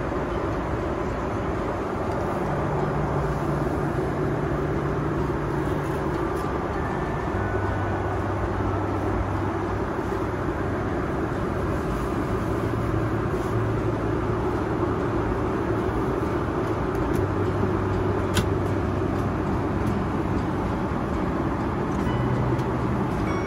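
Boeing 777-300ER cabin noise in cruise flight: a steady, even rush of airflow and engine noise, with a single click late on.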